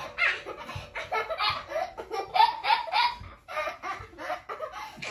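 A young boy laughing hard in a long run of short bursts, about three or four a second.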